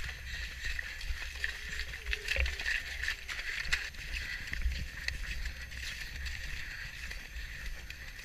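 Horse galloping, heard from a camera mounted on the rider: thudding hoofbeats and rattling tack under wind buffeting the microphone.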